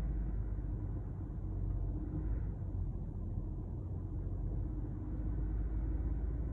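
Peugeot 2008 engine held at about 2000 rpm, a steady low rumble heard from inside the cabin. It is being held there to bring out a rattle behind the passenger-side dashboard and glovebox that has troubled the new car since delivery.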